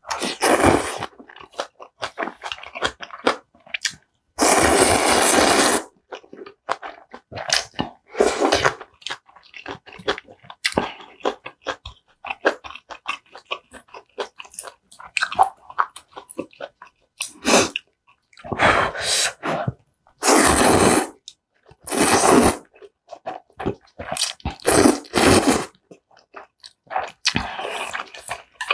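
Close-up eating sounds of kalguksu noodles: several long wet slurps of noodles, each up to about a second and a half, the longest about five seconds in, with chewing and small mouth clicks between them.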